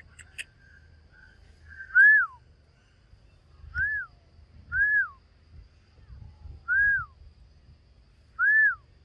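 A person whistling five short notes, each rising and then falling in pitch, spaced a second or two apart, calling to a monkey.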